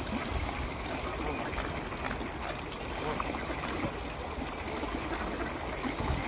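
Water splashing and churning as a crowd of mallard ducks thrashes and dives at the surface, a steady rush of many small splashes.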